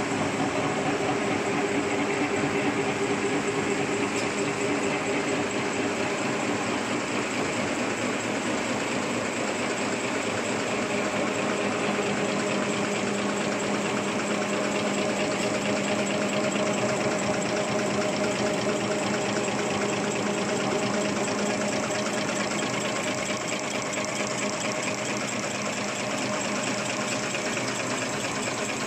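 Automatic napkin paper folding machine running steadily: a fast, even mechanical clatter over a constant hum.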